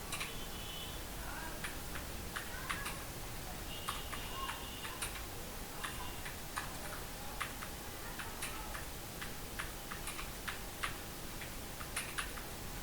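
Computer keyboard keys being typed at an uneven pace, a few clicks a second, over a faint steady hum.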